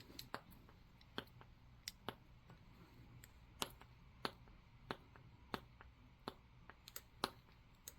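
Near silence with faint, irregular small clicks, about two a second.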